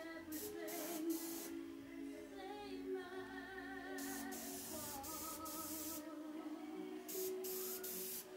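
Background music with a woman singing, over which an airbrush sprays in several short hissing bursts: a few near the start, a longer run in the middle and a quick cluster near the end.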